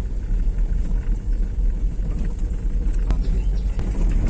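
Steady low rumble of a small car's engine and tyres heard inside the cabin while it is being driven, with two short clicks under a second apart about three seconds in.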